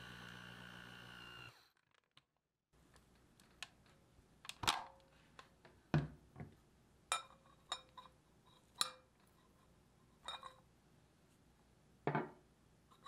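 Hand mixer motor running with dough hooks in bread dough, stopping about a second and a half in. After a short silence, a series of sharp clinks and knocks, some ringing briefly, as the metal dough hooks are worked out of the dough and tap against the glass bowl.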